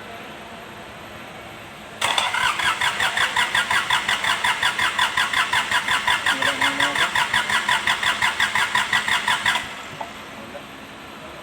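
Kubota D905 three-cylinder diesel cranked on its starter motor for about seven and a half seconds, a steady rhythm of about five pulses a second, then released without the engine catching: hard starting, which the owner puts down to a lack of fuel.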